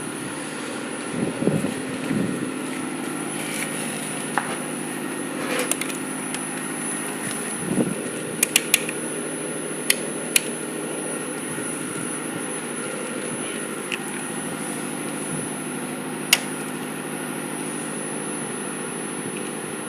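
Steady electrical hum from a running power inverter, with a faint constant high whine, broken by a few sharp clicks, three in quick succession about halfway through and a single one later.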